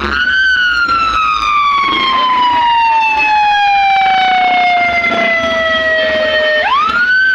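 Loud siren wail: the tone jumps up sharply at the start, slides slowly down for about six seconds, then sweeps up again near the end.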